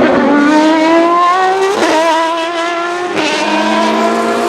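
Hypercar-class endurance prototype race car under acceleration. The engine note climbs, then drops sharply twice at gear changes, about two seconds in and again a little after three seconds.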